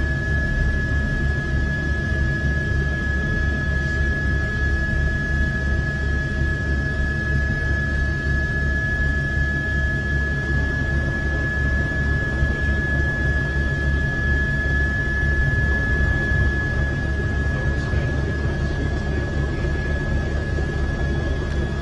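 Helicopter running in flight: a fast low beat of the rotor blades with a steady high whine from the turbine over a constant rushing noise.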